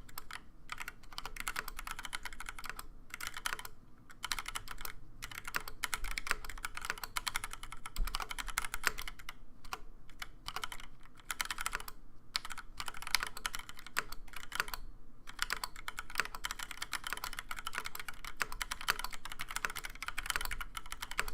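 Continuous typing on a TX75 mechanical keyboard with Gateron Black linear switches on a brass plate, Cherry doubleshot ABS keycaps and a POM spacebar: a rapid stream of key clacks broken by a few brief pauses.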